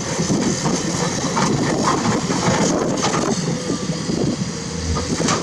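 Komatsu PC210-10 hydraulic excavator working limestone: its diesel engine running steadily under a constant crunching and clattering of rock and metal.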